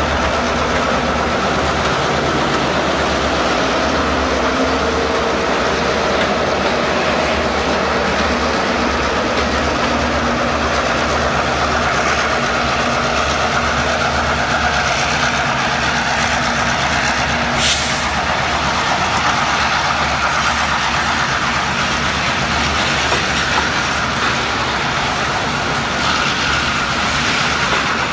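Freight train passing close: Chicago & North Western diesel locomotives drumming by and moving away, then a steady rolling rumble of freight cars with clickety-clack over the rail joints. A single sharp metallic click about two-thirds of the way through.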